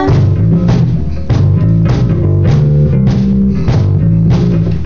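A band playing an instrumental passage: bass guitar holding low notes under guitar, with a drum kit hitting a steady beat about every 0.6 seconds.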